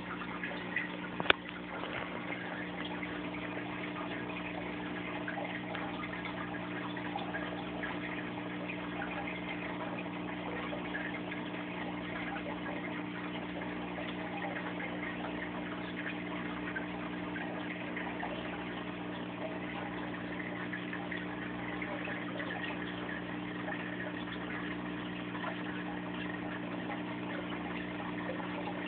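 Reef aquarium's water circulation pump running with a steady hum and a constant wash of moving water, with one sharp knock a little over a second in.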